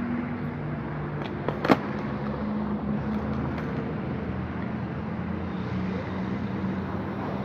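Skateboard wheels rolling on rough concrete, a steady rumble, with a few sharp clacks of the board about a second and a half in, the last one loud.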